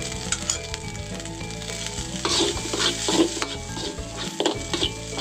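Fried corn rice sizzling in an aluminium wok, with a metal spatula scraping and stirring it in repeated strokes that start about two seconds in.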